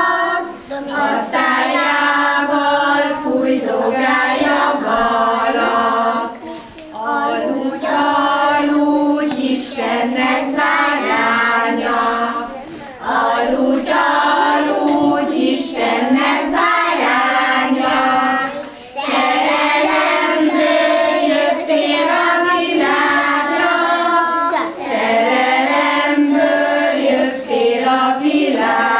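A group of young kindergarten children singing a song together, phrase after phrase, with short breaths between phrases about every six seconds.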